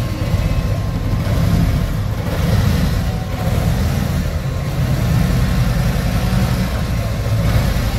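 Harley-Davidson Ultra Classic's Milwaukee-Eight 107 V-twin engine running steadily at low speed as the heavy touring bike creeps along.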